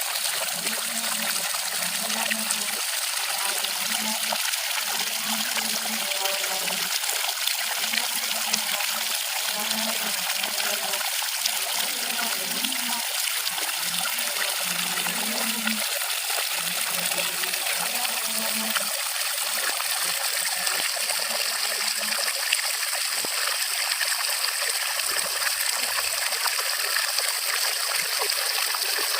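Water flowing and trickling steadily.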